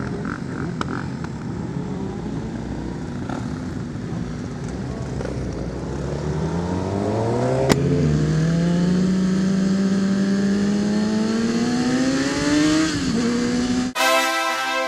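Sport motorcycle engine accelerating hard, its note rising steadily for several seconds and then dropping at a gear change. Music starts just before the end.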